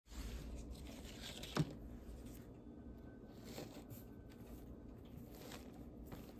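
Fingers pressing potting soil mixed with perlite around a plant stem in a cut plastic-bottle pot: faint gritty rustling and crunching, with a few soft ticks.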